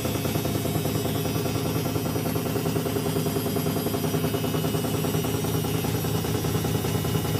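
Narrow Ariston washing machine on its spin cycle, the drum knocking fast and evenly with a heavy vibration, as if something is catching and striking: a strong knocking fault in a new machine whose shipping bolts are already removed.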